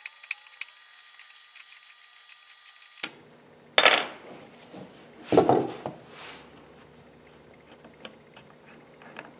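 Small metal clicks of a 7mm wrench working the trigger valve fitting on a pneumatic finish nailer. Just before four seconds in comes a louder clatter, then a second handling noise about a second and a half later.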